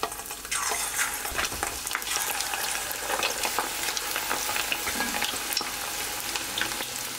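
Shrimp coated in egg and potato starch deep-frying in oil at 170 °C: a dense sizzle full of small crackles. It grows louder about half a second in as another shrimp goes into the oil.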